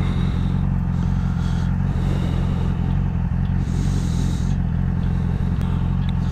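Yamaha R6 sport bike's inline-four engine idling steadily while stopped, with no revving.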